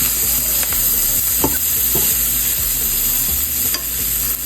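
Broccolini sizzling in melted butter in a frying pan, a steady hiss, with a few sharp clicks of a utensil against the pan as it is tossed.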